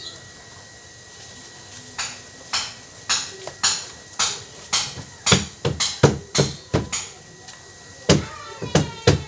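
Hammer blows on metal, about two a second, while a washing-machine gearbox is fitted. Each blow rings briefly, and the hammering pauses for about a second near the end.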